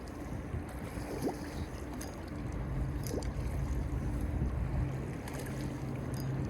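A steady low motor hum under wind rumble on the microphone. A deeper hum comes in about two and a half seconds in and holds steady.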